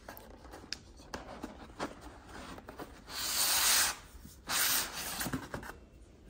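A steel chainsaw guide bar slid out of its cardboard sleeve: cardboard rubbing and scraping, with two loud drawn-out scrapes about three and four and a half seconds in, and small crinkles and taps around them.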